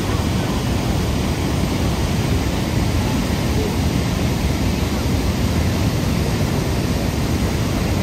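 Niagara Falls pouring: a steady, even rush of falling water, heaviest in the deep range.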